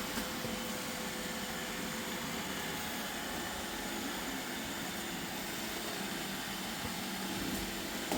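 Roomba robot vacuums running: a steady whirring hum of their motors.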